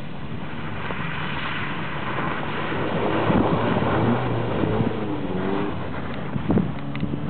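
A car engine revving hard as the car slides sideways through snow on a frozen lake, with the engine note rising and falling and snow spraying from the tyres. It is loudest about halfway through as the car passes closest, then drops back.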